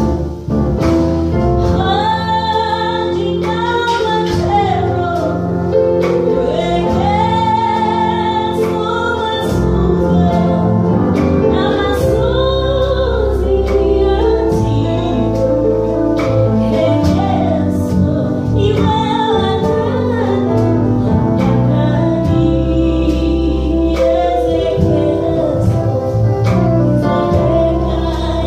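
A woman singing a gospel song in long, wavering held notes over a live band of electric bass, electric guitars, drums and keyboard.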